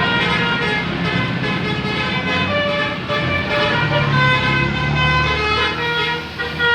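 A bus's 'basuri' telolet musical horn playing a melody of short stepped notes, over the bus engine running, the engine growing louder about halfway through as the bus passes.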